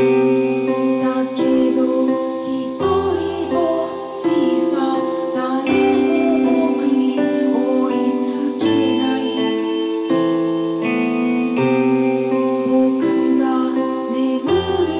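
Live song: electronic keyboard chords changing about once a second, with a woman singing over them.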